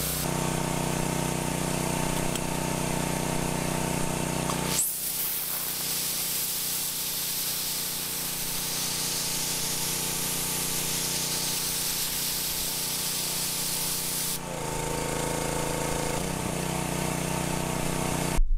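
Pressure washer running steadily, its water broom attachment's jets spraying hard onto concrete, a steady hiss over the machine's hum. For a stretch in the middle only the hiss of the spray is heard, and the hum comes back near the end.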